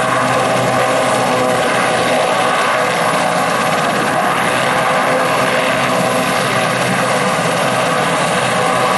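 Helicopter's turbine engines and rotor running loudly and steadily: a mix of steady tones over a rushing noise.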